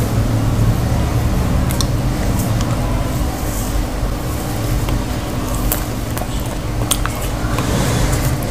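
Close-up eating sounds: fingers squishing through soft potato and cauliflower curry, with a few sharp mouth clicks from chewing. A steady low hum runs underneath.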